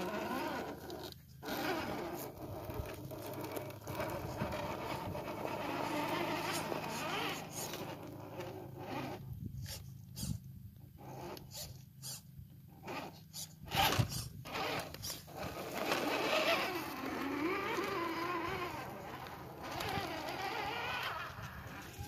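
Radio-controlled rock crawler's electric motor and gear drive whining and growling, pitch rising and falling with the throttle and stopping and starting in short bursts partway through. Knocks of the tyres and chassis on rock, the loudest about fourteen seconds in.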